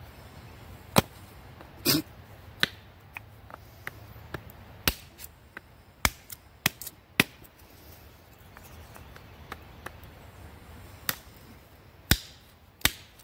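DeWalt 20 oz camper's axe chopping into a short piece of wood held on a wooden stump: about a dozen sharp, irregular knocks, some light taps and some harder strikes, with a pause of a few seconds in the middle before the strikes start again near the end.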